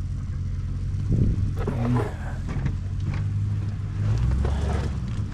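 A vehicle engine running steadily with a low hum, dipping lower for about a second near the end.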